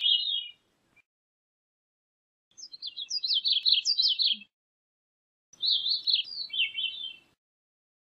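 Gray-cheeked thrush singing: the end of one song phrase, then two full phrases of rapid high notes, each about two seconds long, separated by short pauses.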